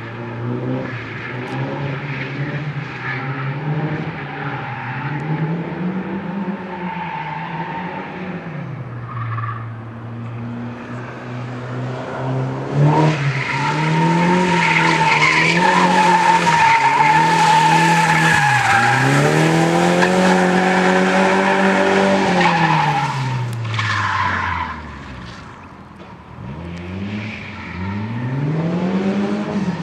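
A drifting car's engine revs up and down while its tyres squeal and skid. The squeal is loudest and longest from about halfway in until shortly before the end. Near the end the revs fall off low, then climb again.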